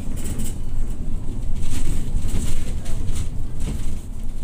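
MAZ-215 articulated city bus under way, heard from inside the passenger cabin: a steady low rumble of engine and road noise, with irregular clicks and rattles from the body.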